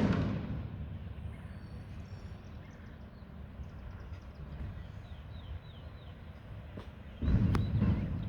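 Faint bird chirps over a steady low outdoor rumble, then a loud low rumble lasting about a second near the end.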